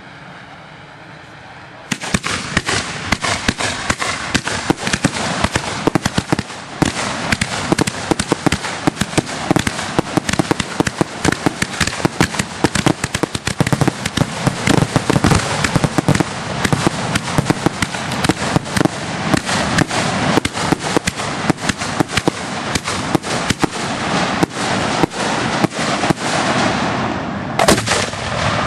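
Aerial fireworks exploding: a dense, unbroken barrage of bangs and crackling pops that starts suddenly about two seconds in and keeps going.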